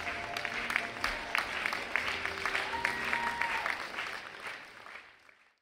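Audience applauding, with music playing underneath; the sound fades out near the end.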